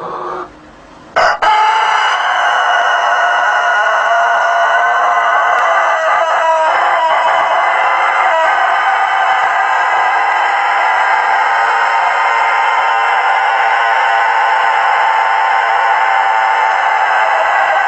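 Rooster crowing one very long, unbroken crow. It starts about a second in and is held at an even level to the end.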